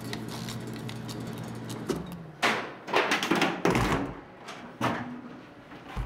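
Office photocopier humming steadily, then a run of loud sliding and rustling noises from about two seconds in.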